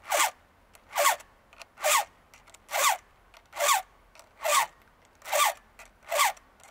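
Round chainsaw file rasping across a steel chain cutter in one-direction push strokes, sharpening the tooth. Eight strokes a little under a second apart, each a short rasp that slides down in pitch.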